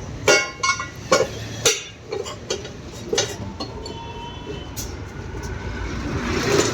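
Metal tools striking and clanking against a motorcycle wheel rim while a tyre is worked on: four sharp ringing clanks in the first two seconds and another about three seconds in, over a steady low rumble.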